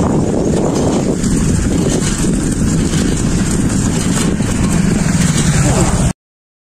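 Wind buffeting the microphone of a camera carried on a moving bicycle, a loud steady rumble and hiss that cuts off suddenly near the end.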